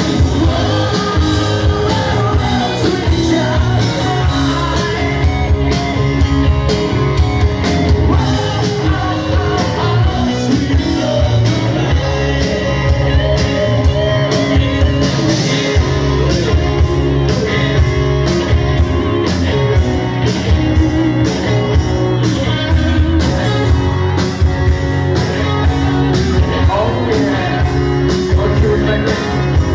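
Live rock band playing loudly: electric guitars, bass guitar and a drum kit.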